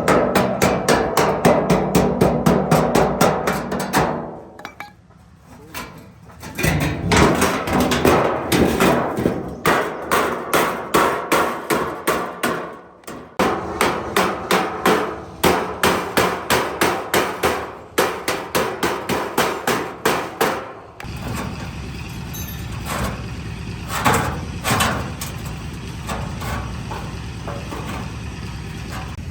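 Hammer blows in long runs of rapid, evenly spaced strikes, with short pauses. About two-thirds of the way in they give way to a steadier, quieter running noise with a few more strikes.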